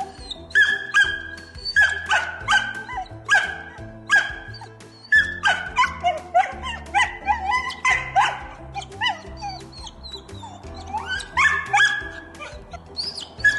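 A dog barking in short, high-pitched yaps, two or three a second, with a brief pause a little past the middle, over background music.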